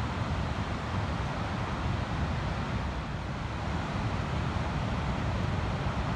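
Ocean surf breaking in a steady, unbroken rush, with wind rumbling on the microphone.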